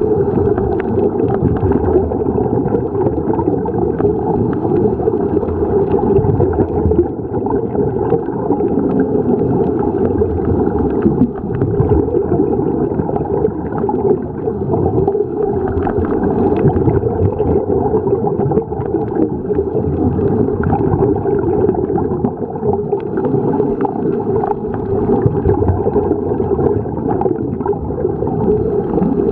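Continuous muffled underwater rumble and gurgling, the sound of scuba divers' exhaled regulator bubbles as heard underwater.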